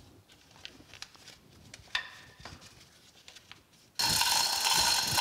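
Faint rubbing and small knocks as a lifting strap is shifted on a hanging shaft. About four seconds in, a sudden loud, steady rasping rattle sets in: the hand chain of a chain hoist being pulled to lift the shaft.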